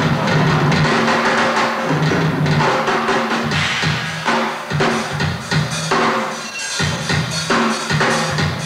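Live rock drum solo on a kit with two bass drums: rapid hits and rolls across snare, toms, kick drums and cymbals, with the toms ringing. The playing thins out briefly twice midway, then picks up again.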